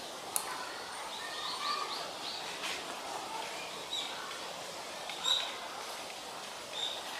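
Small birds chirping now and then, short high calls a second or more apart, over a steady hiss of background noise.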